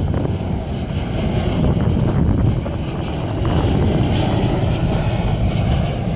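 Jet engine noise from a Boeing 737-700 on final approach, a steady low rushing sound as it passes close by, mixed with wind buffeting the microphone.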